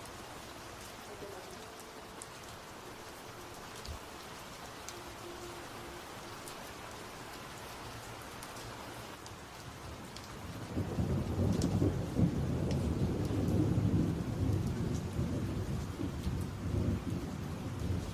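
Steady rain falling, then about ten seconds in a long low rumble of thunder rolls in, loudest a few seconds later and still rumbling at the end.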